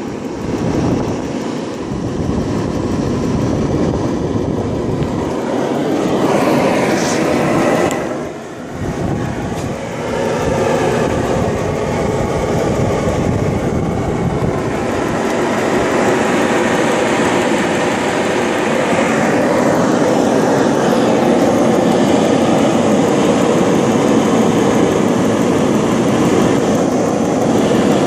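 Dyna-Glo Delux propane forced-air (torpedo) heater running: its fan and burner flame make a steady rushing noise, briefly dipping about eight seconds in.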